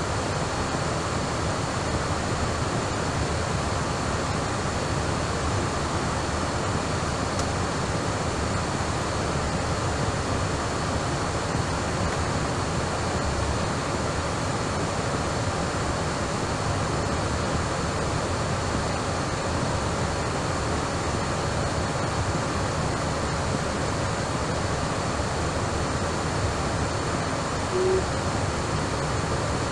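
Steady hiss of radio static between air traffic control transmissions, with one short tone near the end.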